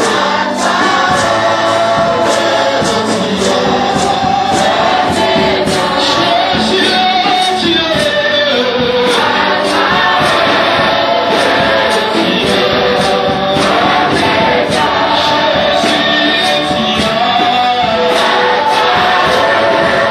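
Gospel worship song: a choir singing with a band over a steady beat.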